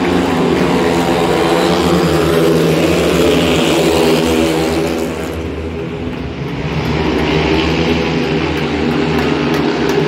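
A pack of long track racing motorcycles, single-cylinder 500 cc methanol engines, running flat out as they race around the dirt oval. Their sound dips a little past halfway as the pack moves off, then builds again.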